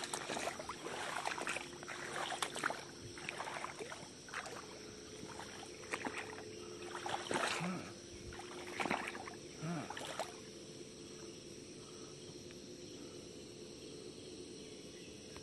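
Irregular sloshing splashes of someone wading through shallow floodwater, which stop about ten seconds in. Behind them runs a steady chorus of insects.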